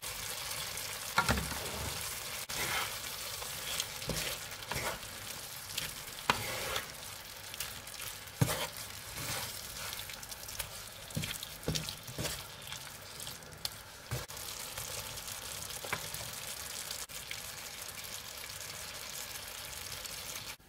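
Minced beef and sour cream sauce sizzling steadily in a frying pan, with a wooden spatula knocking and scraping against the pan at irregular moments as spinach farfalle is stirred through.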